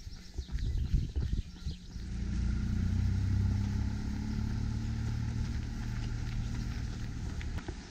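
Running footsteps on a gravel path for about two seconds, then the low, steady hum of a motor engine rises in and runs on, cutting off suddenly near the end.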